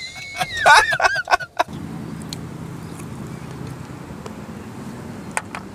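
A high-pitched squealing voice that slides and wavers in pitch for about a second and a half, then stops abruptly and gives way to a steady low hum.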